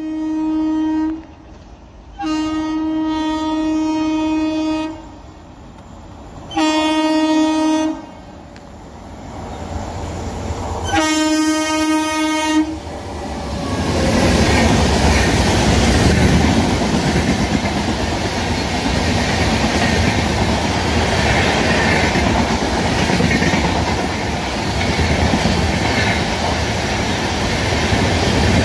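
Indian Railways WAP-7 electric locomotive's horn sounds four times in the first half: a short blast, a long one, then two shorter ones. From about halfway, the locomotive and its train of passenger coaches pass at high speed with a loud, steady rush of wheels on the rails.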